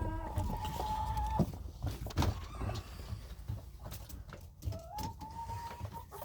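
Hen in a chicken coop giving two long, steady, drawn-out calls, one at the start and one near the end, among a few clicks and bumps of handling.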